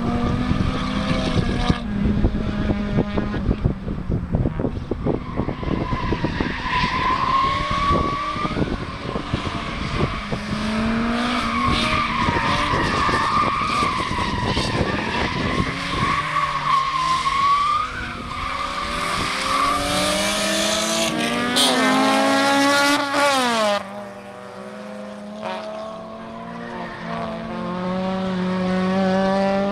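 Rear-wheel-drive Suzuki Swift drift car sliding with its engine revving up and down and its tyres squealing through the drift. About two-thirds of the way through, the revs climb steeply and then drop off suddenly, and the engine runs on more quietly after that.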